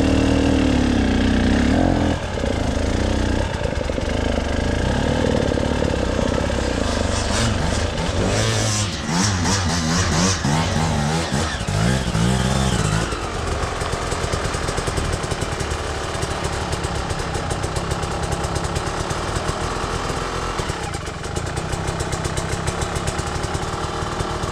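Small engine running, revving up and down around the middle, then settling into a steady run.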